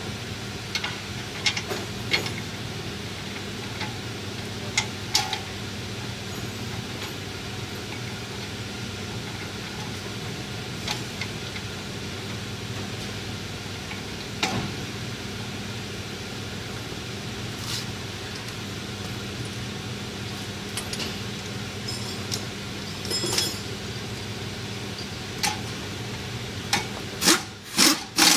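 Scattered metallic clinks and knocks of tools and brake parts being handled at a car's front wheel hub, a few louder knocks near the end, over a steady low hum.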